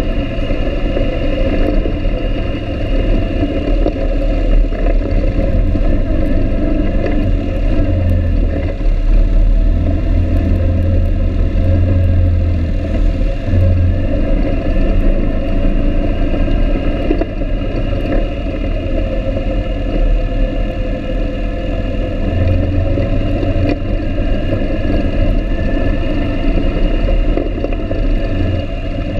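ATV (quad) engine running steadily under way along a rough dirt trail, with a heavy low rumble.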